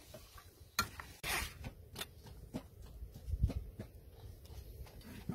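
A fork and serving utensil clicking and scraping against an enamel tray while tossing a large heap of instant noodles, with noodles rustling and cabbage leaves set down; irregular short clicks a second or so apart.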